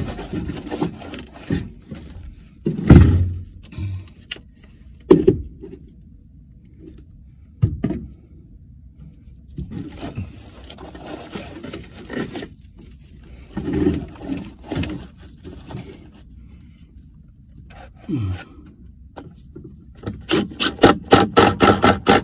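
Wire cage trap scraping and knocking against wooden framing and foil duct as it is fitted into place. Near the end, a cordless drill runs in a quick series of short trigger bursts.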